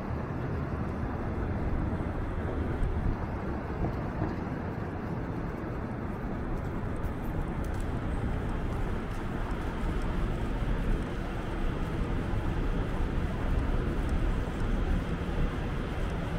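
City street ambience: a steady low rumble of traffic with no distinct single event standing out.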